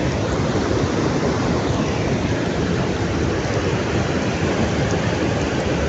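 Steady rushing of a waterfall, a continuous dense roar of falling water with no break.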